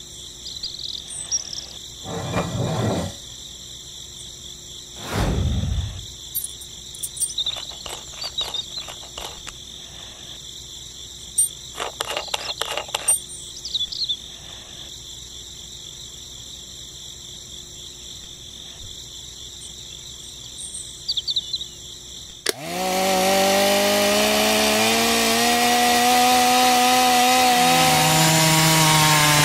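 A steady background of insect chirring with scattered small clicks as toy tractor parts are handled and fitted. About 22 seconds in, the small DC electric motor of a homemade toy circular saw switches on: a whine that rises in pitch as the metal blade spins up, then runs on loudly.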